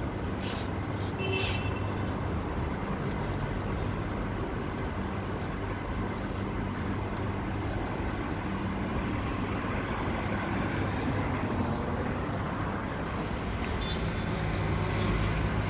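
Street traffic: car engines running along the road, a steady low hum over road noise.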